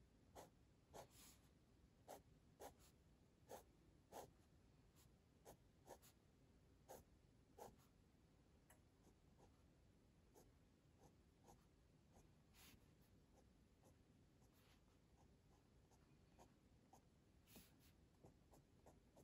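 Faint scratching of a fine-tip pen on sketchbook paper, drawing short quick strokes: one or two a second at first, then sparser after about eight seconds.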